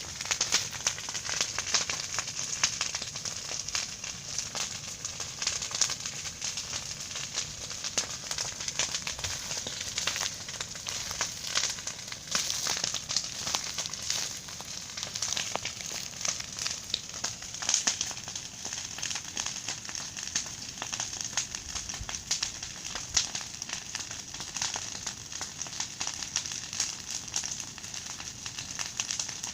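A big bonfire burning: a dense, steady crackle with many sharp pops.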